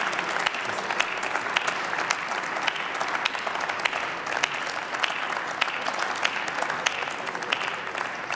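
Applause from a seated parliamentary audience: many people clapping at once, easing off slightly near the end.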